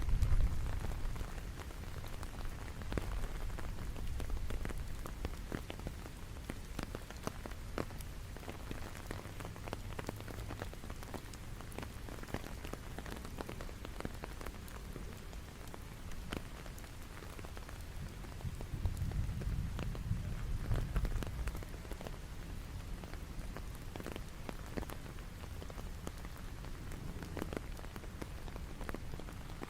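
Steady rain falling, with many individual drops heard distinctly over an even hiss. A low rumble swells at the start and again about two-thirds of the way through.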